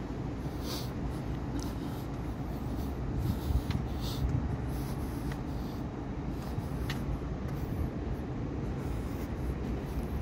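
Steady low rumble of distant city traffic, with a few soft knocks about three and a half seconds in.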